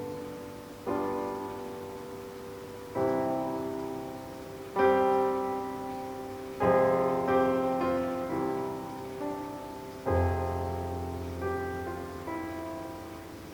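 Solo piano music played back through Denon SC-E232 two-way bookshelf speakers. Slow chords are struck every two seconds or so and left to ring and fade.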